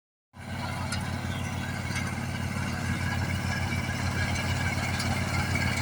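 Combine harvester's diesel engine running steadily with an even, rapid pulse.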